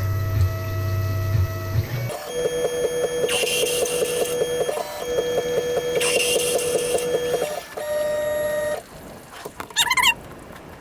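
Tormach CNC mill running: a steady hum for about two seconds, then two stretches of motor whine with fast, even ticking as the machine's axes travel. Near the end come two short warbling chirps.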